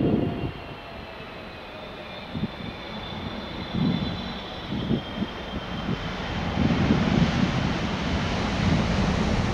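Boeing 777F's GE90 jet engines whining on landing as the aircraft flares and touches down, the high whine slowly falling in pitch while a low rumble builds toward the end. Irregular low gusts of wind buffet the microphone.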